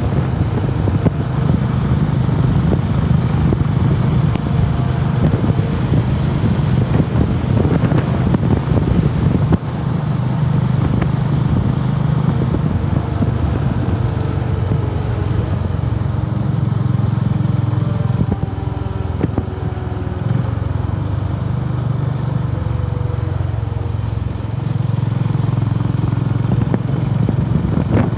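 Honda CB350RS's single-cylinder engine running while the motorcycle is ridden. The engine note dips briefly about a third of the way in, runs softer for several seconds in the second half, then picks up again near the end.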